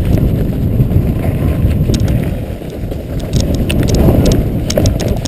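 Wind buffeting a helmet-mounted camera's microphone as a downhill mountain bike runs fast over a rough dirt trail, with the bike's chain and frame rattling in short clatters over the bumps.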